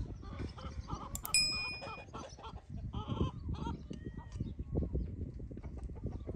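A knife cutting meat on a board with soft, irregular knocks, and one bright metallic ding about a second in that rings briefly, like a utensil striking a dish.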